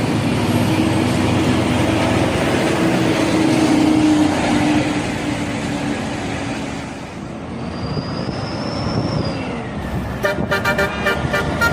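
Steady road-vehicle noise that swells and fades. About ten seconds in, a multi-tone telolet bus horn starts sounding in rapid pulses.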